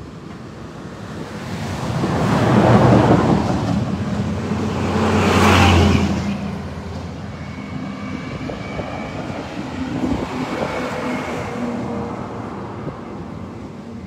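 Road vehicles driving past on a bridge: two passes, each swelling and fading, about three and six seconds in. Beneath them runs the steady rush of fast-flowing floodwater.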